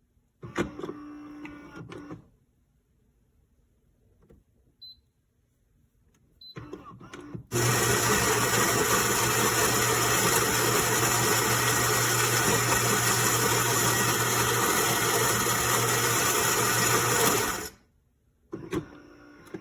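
Philips 4300 Series LatteGo fully automatic espresso machine running: a short burst of machine noise near the start, then about ten seconds of loud, steady mechanical whirring with a low hum that stops sharply near the end.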